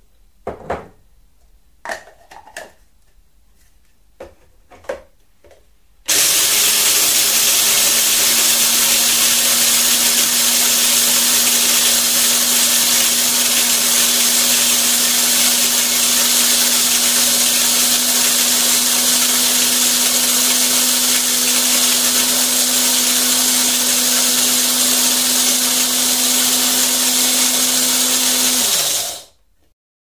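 A few sharp clicks and knocks, then an electric coffee grinder loaded with beans runs for over twenty seconds: a loud, steady grinding whir over a steady motor hum. Near the end the hum drops in pitch as it switches off and stops.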